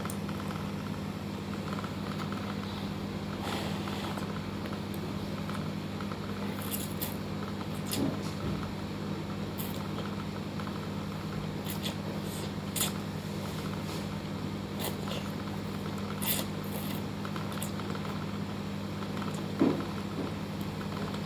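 Eating noodles: scattered small clicks and taps of utensils against the bowl and mouth sounds, over a steady low hum.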